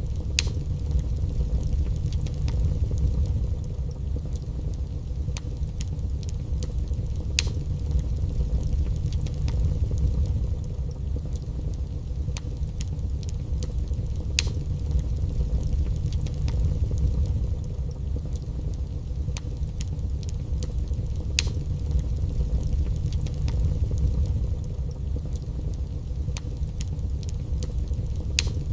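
Wood fire burning in a fireplace: a steady low rumble of flames with scattered sharp crackles and a few louder pops.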